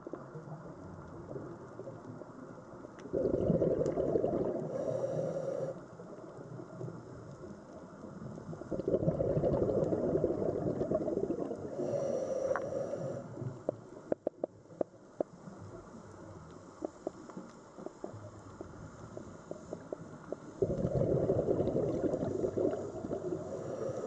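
Underwater recording: three bursts of low rumbling noise a few seconds long each, with scattered sharp clicks in between.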